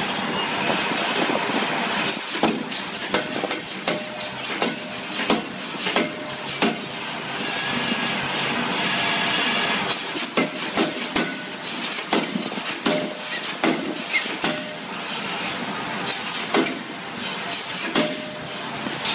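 Large power forging hammer's ram striking a glowing steel billet on the anvil in three runs of rapid blows, about two to three a second, each with a sharp metallic ring. Between the runs there is a steady machine hum.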